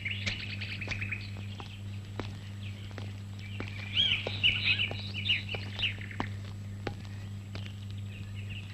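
Birds chirping and twittering, with a busy run of chirps about four seconds in, over a steady low hum.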